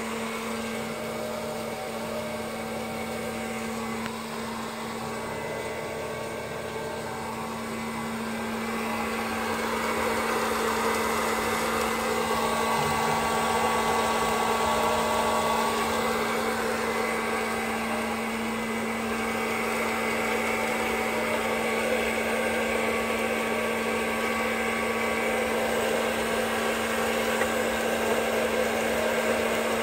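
West Bend Air Crazy hot-air popcorn popper running: a steady fan whir with a constant hum, getting somewhat louder about a third of the way in.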